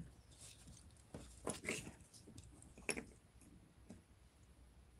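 Faint handling noises of beads and beading wire being worked by hand: a few small clicks and rustles, a cluster about a second and a half in and single ones near three and four seconds.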